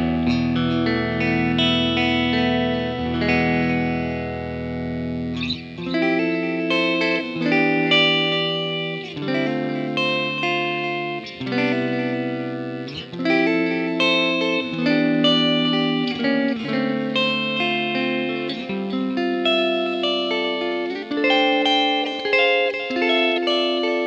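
Electric guitar, a Hahn 228 played through effects pedals into a Fender Blues Jr amp. It holds a low ringing note for the first few seconds, then plays a phrase of chords and single notes that each ring on.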